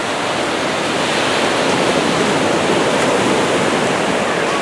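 Small surf washing onto a sandy beach: a steady rush of water that swells a little through the middle.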